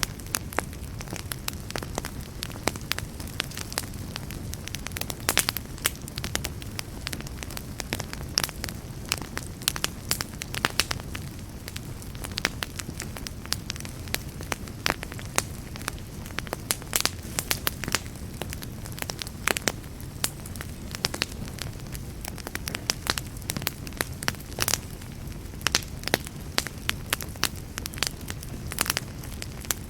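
Wood fire burning with a steady low rumble and frequent irregular sharp crackles and pops.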